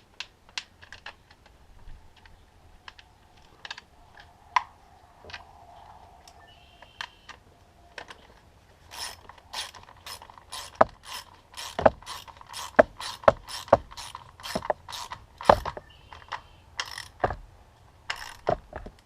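Socket ratchet with a 10 mm socket clicking as a bolt is run in: scattered light clicks at first, then from about nine seconds in a steady run of louder clicks, about two a second, for some six seconds, with a few more near the end.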